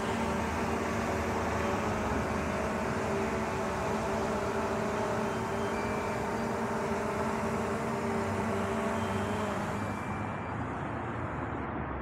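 DJI Mavic quadcopter drone hovering a few metres overhead, its propellers giving a steady buzzing whine made of several held pitches. The whine eases near the end as the drone is brought down to be hand-caught.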